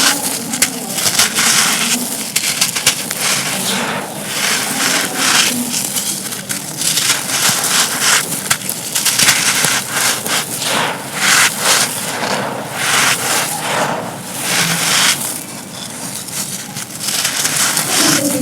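Dry, crumbly pieces being crushed and crumbled by hand: a dense, continuous crunching crackle made of many quick small cracks, swelling and easing in waves.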